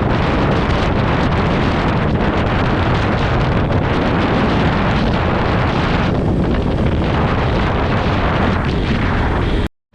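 Loud wind buffeting on a helmet-mounted microphone while riding a motorcycle at speed, with the bike's engine and road noise underneath. It cuts off to silence for a moment near the end.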